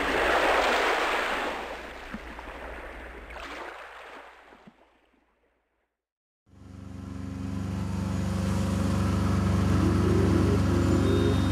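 A loud wash of noise that fades away over about five seconds, then a second of silence, then background music fading in: a steady low drone, joined by a repeating figure about ten seconds in.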